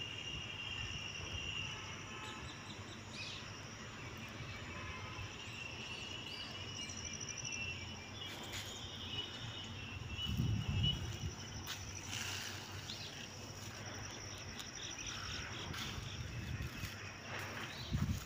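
Insects chirring steadily at a high pitch in the outdoor background, with a low rumble about ten seconds in and another near the end.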